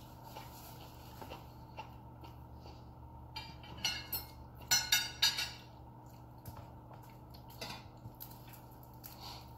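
Eating sounds at a dinner table: small mouth and tableware noises, with a cluster of short crackling, smacking sounds in the middle, three of them loudest, over a steady low hum.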